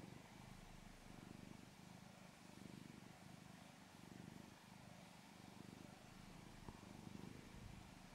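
Black-and-white domestic cat purring softly while being stroked, the purr rising and falling in an even rhythm with its breaths.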